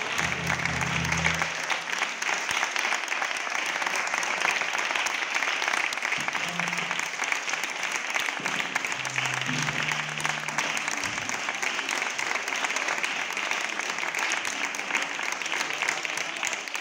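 Audience applauding steadily, a dense crackle of many hands clapping, with a few brief low pitched sounds near the start and around the middle.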